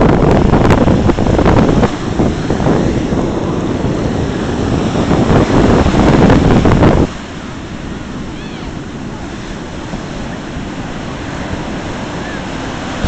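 Ocean surf breaking and washing up the sand, with wind buffeting the microphone. About halfway through the loud wind noise cuts off suddenly, leaving the softer, steady wash of the surf.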